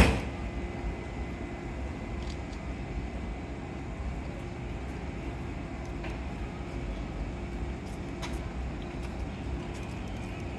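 JR 185 series electric train standing at the platform, its on-board equipment giving a steady hum over a low rumble. A single sharp thump comes at the very start.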